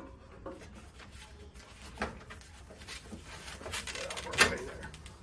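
Chiller circulation pump being twisted and pulled free of its glued-on hoses: scattered knocks and plastic-and-rubber rubbing, with a louder clunk about four seconds in.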